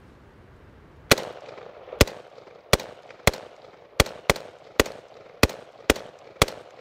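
Semi-automatic fire from an LMT R20 Rahe 5.56 mm AR-15-type rifle: ten single shots at an uneven pace of one to two a second, each with a short ringing tail.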